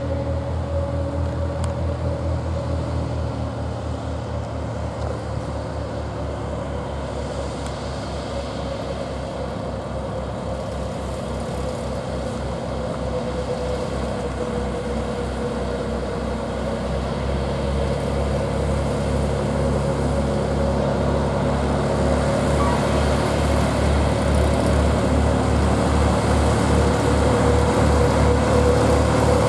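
An engine running with an even low throb and a steady whining tone, growing gradually louder.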